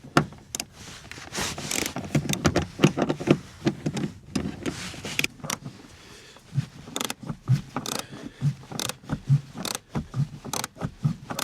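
Irregular clicks, knocks and scrapes of car interior trim being worked loose and handled, with a few dull thuds in the second half.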